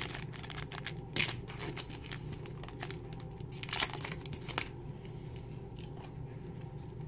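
Crinkly foil wrapper of a Magic: The Gathering booster pack being torn open and crumpled, a dense run of sharp crackles, then quieter rustling for the last couple of seconds as the cards are slid out.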